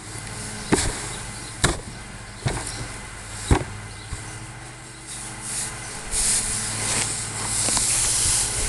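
Hay being rammed down into a wheelie-bin hand baler with a wooden block: four dull thumps about a second apart. From about six seconds in, loose hay rustles as an armful is gathered up from the ground.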